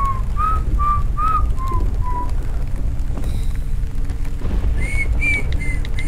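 A man whistling a tune in short notes. The whistling breaks off about two seconds in and starts again near the end on higher notes. A low steady rumble runs underneath.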